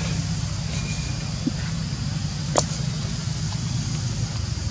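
A motor running steadily with a low hum, and one sharp click about two and a half seconds in.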